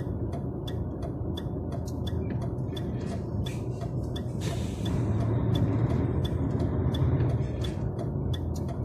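DAF truck's diesel engine running under load and pulling harder for a couple of seconds near the middle, with its drive wheels slipping on a slippery surface. A string of quick sharp ticks runs over the engine sound.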